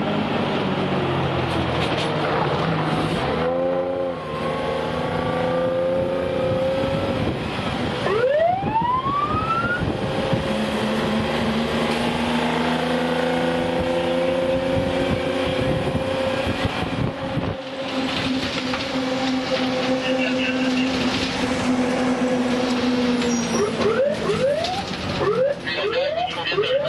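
Fire engine on an emergency run: its engine drones steadily while the siren gives short rising whoops, once about eight seconds in and several in quick succession near the end.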